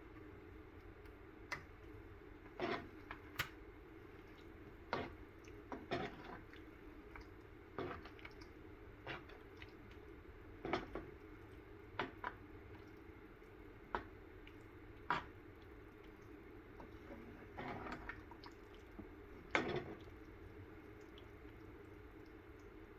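Faint, irregular wet plops and squelches, about one every second or two, from a pan of thick pav bhaji vegetable mash, over a steady low hum.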